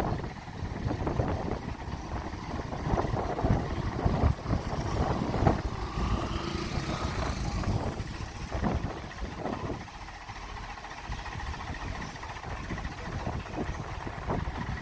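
An engine running, with a steady rumble broken by irregular knocks and clatter; it eases off about ten seconds in.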